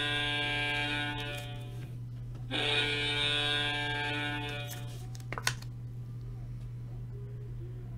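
Alarm buzzer of a red beacon light sounding a big hit: a steady, unwavering buzz that breaks off about two seconds in, sounds again for about two seconds, then stops. A sharp click follows about five and a half seconds in, over a low electrical hum.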